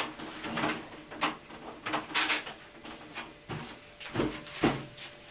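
Handling noise from a large 1:5-scale RC car being picked over by hand: a run of small clicks, knocks and rustles, with two dull thumps a little after four seconds in.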